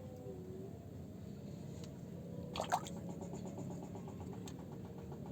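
A short splash of water a little past halfway, over a steady low background, followed by a fast, even run of faint ticks.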